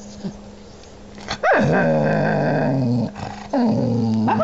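Small dog growling in long, drawn-out grumbles, her annoyed 'talking': one starting about a second and a half in that drops in pitch and holds, and a second starting near the end.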